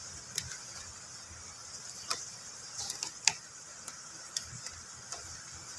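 Sharp plastic clicks and light knocks from a black hard plastic case being handled and opened, about six scattered over a few seconds, the loudest a little past halfway.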